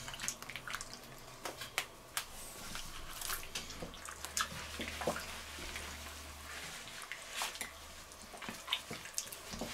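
Gloved hands kneading chunks of raw meat in a tomato marinade in a stainless steel bowl: irregular wet squelches and small clicks.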